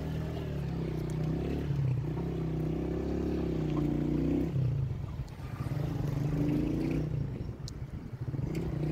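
A vehicle engine running in slow street traffic, its pitch rising and falling as it speeds up and eases off.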